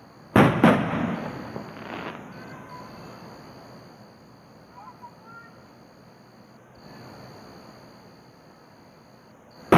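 Aerial fireworks shells bursting at a distance. Two sharp reports come less than a second apart near the start, each trailing off in a long rolling echo, and a lighter pop follows about two seconds in. Another loud report lands right at the end.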